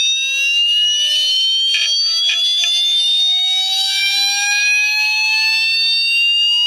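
Voice coil actuator of an opened Seagate hard drive, driven through an amplifier like a speaker, sounding a steady high tone with several overtones that slowly rises in pitch through about an octave as the frequency sweep plays.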